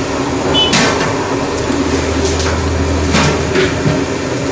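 Steady background noise of a working kitchen, with a few short knocks and clatters; a low hum comes in a couple of seconds in and stops about a second and a half later.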